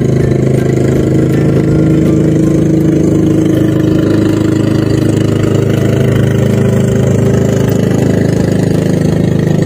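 Engine of a small motorized outrigger fishing boat running steadily as the boat passes close by.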